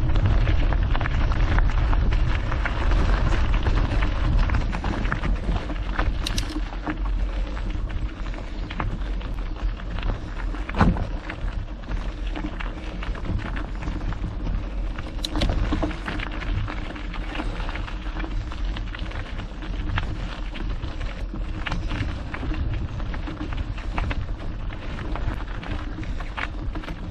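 Mountain bike rolling along a trail: the tyres crunch and rumble over the stony surface, the bike rattles with small knocks, and wind rumbles on the action-camera microphone. There is a louder knock about eleven seconds in.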